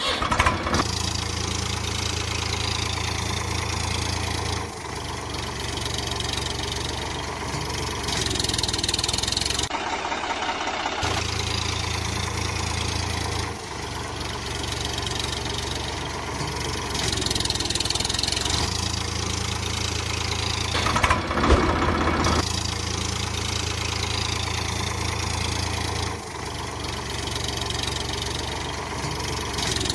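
Tractor engine running at idle, a steady rumble that drops out and comes back every few seconds as a repeating recording.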